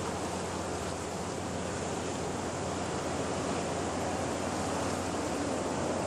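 Sea surf washing on a rocky shore: a continuous, steady rushing noise.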